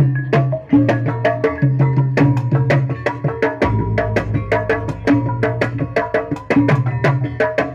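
Kuda kepang gamelan ensemble playing percussion-heavy music: a fast, even rhythm of struck drums and tuned metal instruments over recurring low drum notes.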